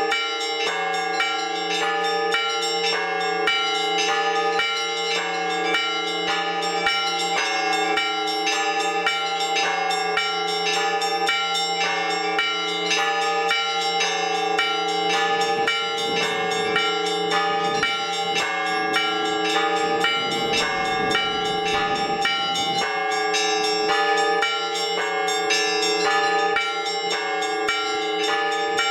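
Orthodox church bells ringing (zvon). Small bells are struck in a quick, continuous repeating pattern over the sustained, ringing tones of the larger bells.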